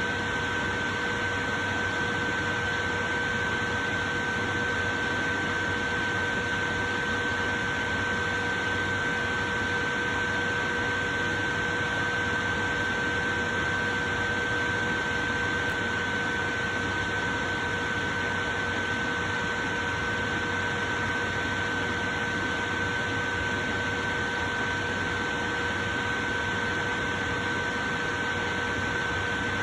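Portable electric fan running steadily: an even rush of air with a constant high-pitched whine from the motor over it.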